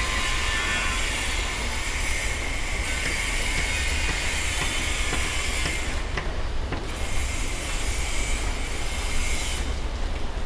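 Construction site noise: a low rumble under a high hiss and whine of machinery that cuts out briefly about two-thirds of the way through and again near the end, with a few sharp clicks.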